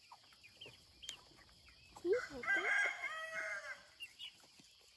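Chickens in a pen clucking softly, with one rooster crow about two seconds in that lasts about a second and a half.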